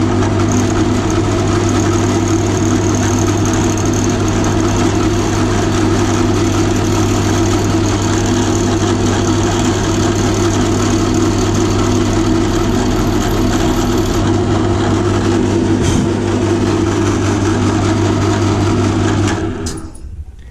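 Electric drill running steadily as it bores a pilot hole into a sheared-off bolt, winding down and stopping about a second before the end.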